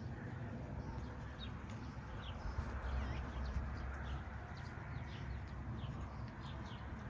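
Small birds chirping in short, scattered high calls, over a steady low background noise. The birds are hunting insects around cattle.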